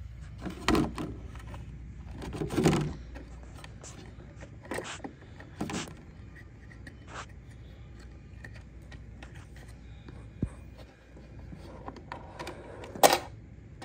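Small plastic toy kitchen pieces handled by hand: a scattering of light clicks and taps with scraping between them, the loudest click near the end.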